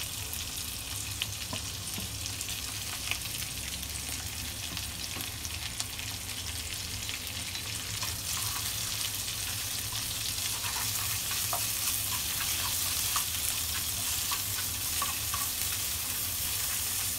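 Minced pork sizzling in hot oil with fried garlic in a non-stick pan, stirred and broken up with a wooden utensil that lightly taps and scrapes the pan. The sizzle gets a little louder about halfway through as the meat is spread across the pan.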